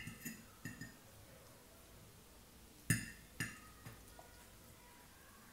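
Forks clinking against a plate while twirling spaghetti: a few light taps at the start, then two sharper clinks about half a second apart near the middle and a softer one just after.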